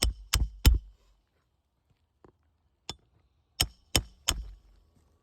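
Hammer striking a steel roof snake to drive roofing nails under a lifted asphalt shingle tab on the seal line. Three quick blows, a pause with two light taps, then three more blows, each with a short metallic ring.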